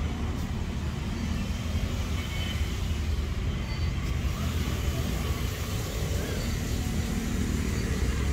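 A steady, low outdoor rumble with no distinct event standing out.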